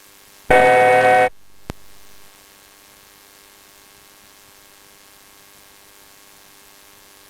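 A short, loud electronic buzzing tone lasting under a second, cut off abruptly and followed by a single click, heard over cockpit headset audio with its steady background hiss and hum.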